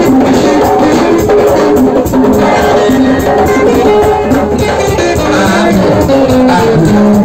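Live West African-style drum music: hand drums and shakers keeping a quick, steady rhythm with a melody line over it.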